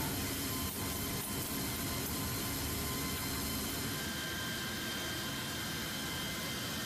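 Steady aircraft machinery drone with several thin, high, steady whines, heard inside a C-17 Globemaster's cargo hold, with a couple of faint clicks about a second in.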